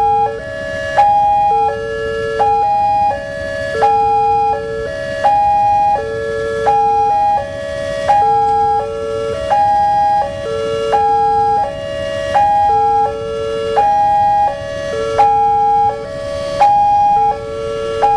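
Indonesian railway level-crossing electronic warning alarm sounding: a loud, repeating sequence of stepped tones, cycling about every second and a half.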